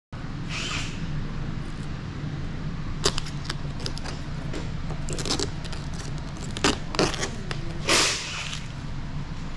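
Hands working clear paint protection film onto a car's side mirror cap: a few short rustles and taps, the loudest a brief rustle near the end, over a steady low hum.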